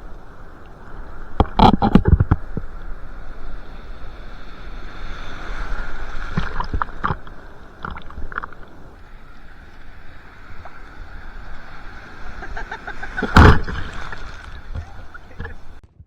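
Sea water sloshing and surf washing around a surfer in the waves, with two loud splashing knocks, about two seconds in and near the end.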